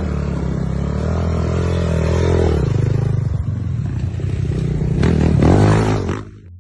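LEM 300 dirt bike engine revving hard with the rear wheel spinning in grass and dirt, rising and falling in pitch over several surges. It cuts off suddenly near the end.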